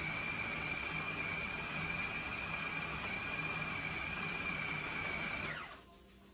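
Food processor motor running steadily with a high whine as it grinds beef and pork into mince, then switched off about five and a half seconds in, the whine falling away as the blade spins down.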